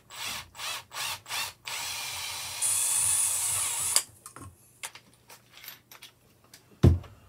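Hand-held power drill running a small bit through a badly printed hole in a 3D-printed plastic winch spool, opening it out to 3 mm. The drill gives several short trigger pulses, then runs for about two seconds and stops abruptly about four seconds in. Light clicks follow, and one sharp thump near the end.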